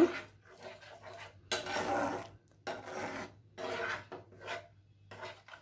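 Metal slotted spatula scraping and stirring through a thick poppy-seed and yogurt paste in a non-stick frying pan, in repeated uneven strokes. The gravy is being fried down to drive off the raw smell of the poppy seeds.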